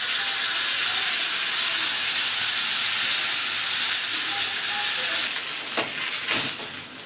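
Masala-coated karimeen (pearl spot fish) sizzling in hot oil on a tawa. The sizzle is loud and steady, then softens about five seconds in to a quieter crackle.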